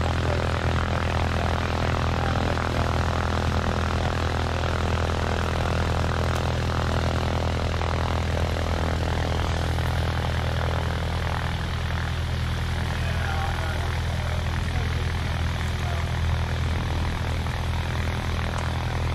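An engine running steadily at one constant speed: a deep droning hum with several steady tones over a hiss, with no change in pitch.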